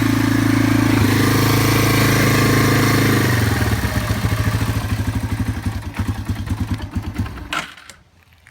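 1990 Yamaha TW200's single-cylinder four-stroke engine running steadily. About three seconds in it slows into uneven chugging, then dies out with a click near the end.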